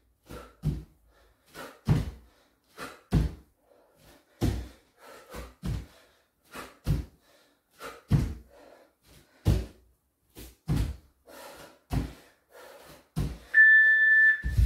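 Bare feet landing squat jumps on a wooden floor: a regular series of heavy thuds, about one a second and often in close pairs. A steady beep about a second long sounds near the end.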